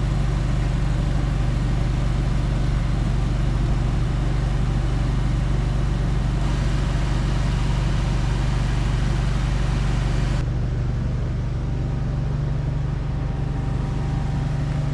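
Vehicle engine idling with a steady low hum. About ten seconds in the sound changes abruptly and the lowest rumble drops.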